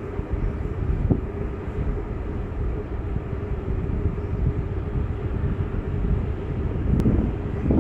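Steady low rumble with wind buffeting the microphone and a faint steady hum, plus a couple of brief bumps near the end.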